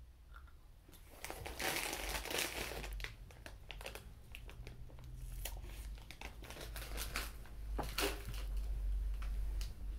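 Plastic snack packet crinkling and rustling in irregular bursts, starting about a second in.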